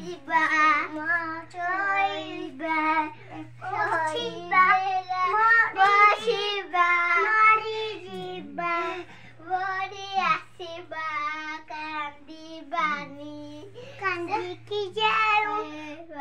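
Young children's high-pitched, sing-song voices, near-continuous with short breaks.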